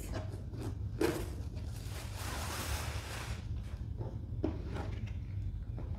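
Cardboard shoe box being opened by hand: a knock about a second in, then about two seconds of rustling as the lid and wrapping come off, with a couple of light knocks after.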